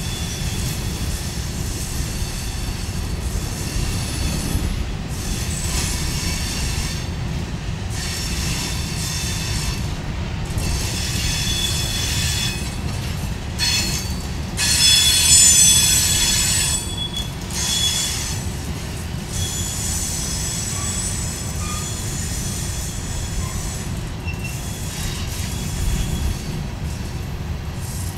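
Empty covered hopper cars of a freight train rolling past with a steady rumble, their wheels squealing in high, multi-pitched stretches that come and go and are loudest about halfway through.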